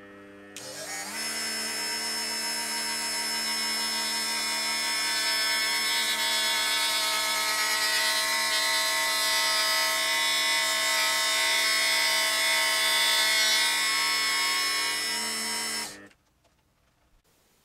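Rotary tool with an abrasive cut-off disc grinding a circlip groove into a steel shaft turning in a lathe: a steady high-pitched whine with grinding hiss. It spins up over the first second and cuts off suddenly near the end.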